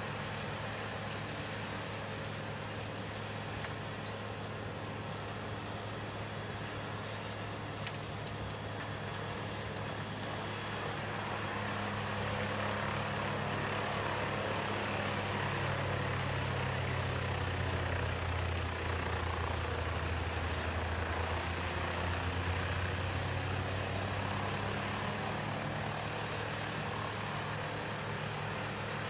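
Large diesel engine of a Morbark 40/36 drum chipper running as it chips brush, a steady heavy drone that grows louder partway through.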